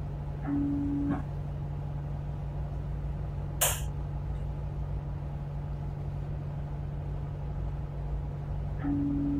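A tugboat's diesel engines run steadily with a low drone. A short low beep sounds twice, about half a second in and again near the end, and a single sharp knock comes a little before the four-second mark.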